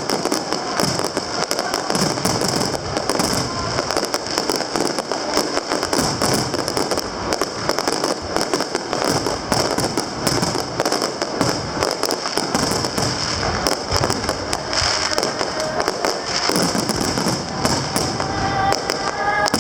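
Aerial fireworks display: a dense, continuous barrage of shell bursts and crackling reports.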